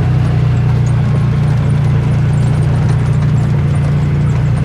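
Polaris side-by-side's engine running steadily, an even low drone heard from inside the cab.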